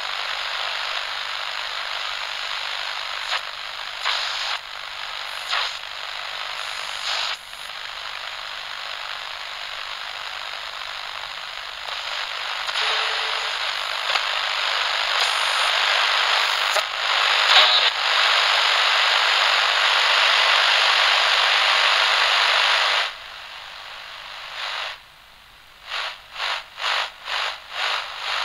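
Handheld radio static: a steady hiss broken now and then by short clicks and shifts. It drops to a quieter hiss about 23 seconds in, then comes back as a run of short bursts, about two a second, near the end.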